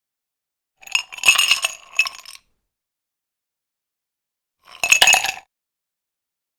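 Ice cubes clinking, in two short bursts of rattling clicks: one about a second in lasting about a second and a half, a shorter one around five seconds in.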